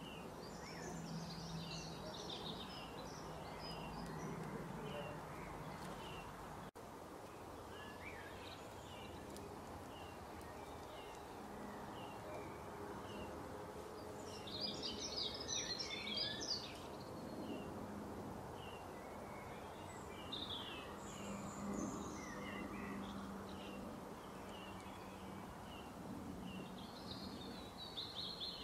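Birds chirping and calling over steady outdoor background noise and a low hum, with a short chirp repeating about once a second and a louder flurry of calls about halfway through.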